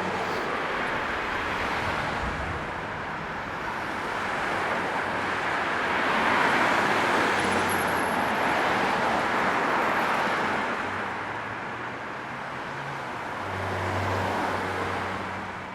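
City street traffic: a steady wash of car and road noise that swells as vehicles pass in the middle, with a low engine rumble coming up near the end.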